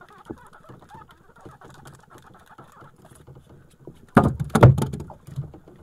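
Handling noise from a handline wound on a plastic bottle: a soft rustle, then a burst of loud knocks and clattering about four seconds in as the bottle swings close.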